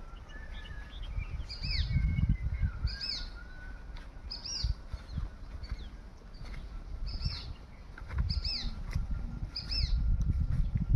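A bird repeating a short, high, falling call about seven times, roughly every second and a half, with fainter chirps from other birds. Under it, an uneven low rumbling on the microphone is louder than the birds.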